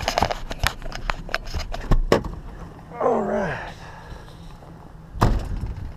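Knocks and clicks of a handheld camera being handled and clipped in place, over the low steady rumble of a pickup truck. A short falling voice-like sound comes about three seconds in, and a sharp knock near the end.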